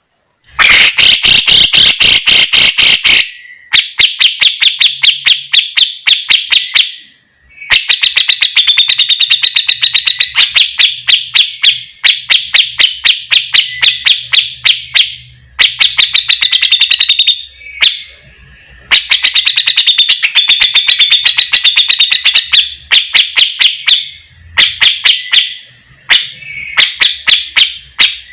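Cucak jenggot (grey-cheeked bulbul) singing loud runs of sharp, rapidly repeated notes, several a second, with short pauses between the runs.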